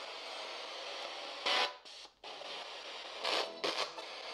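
Handheld spirit box radio sweeping through the stations: steady static hiss broken by short, louder bursts of noise about a second and a half in and twice near the end, with a brief dropout around two seconds.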